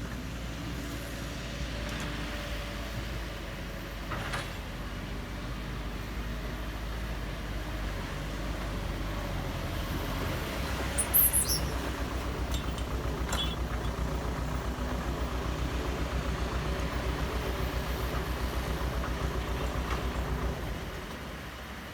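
A heavy vehicle's engine running steadily, with a fast even throb that sets in about halfway through. A brief sharp high squeak comes just after that.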